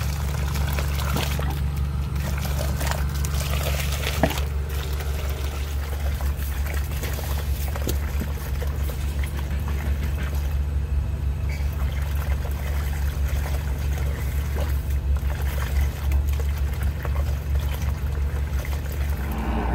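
Water pouring and gurgling out of a kitchen sink drain as a 3/8-inch hydro-jetting hose at 4000 PSI scours inside the pipe, over the steady low hum of the jetter machine running.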